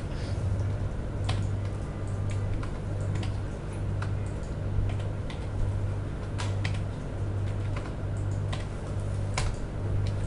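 Typing on a computer keyboard: irregular, scattered key clicks, over a low, pulsing hum.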